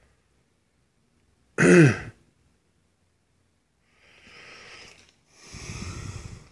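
A person clears their throat once, a short voiced sound falling in pitch, then breathes out noisily twice, the second breath louder.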